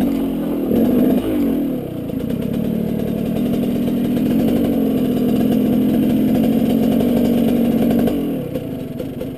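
KTM 200 two-stroke dirt bike engine under throttle on a trail ride: the revs rise and fall for the first two seconds, then hold steady, and the throttle closes about eight seconds in.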